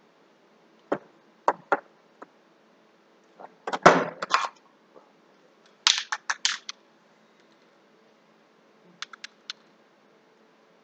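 Irregular sharp clicks, clinks and knocks of hard objects being handled, in a few short clusters, the loudest about four seconds in; there is no spray hiss.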